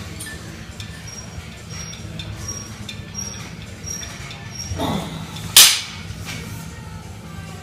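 Gym weights clanking, metal on metal: one loud, sharp clank about five and a half seconds in, with a shorter sound falling in pitch just before it, over a steady low hum.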